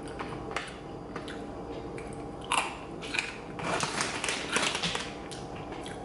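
Crunchy pretzel sticks dipped in cinnamon honey being bitten and chewed: a sharp crunch about two and a half seconds in, then a run of crisp crunches.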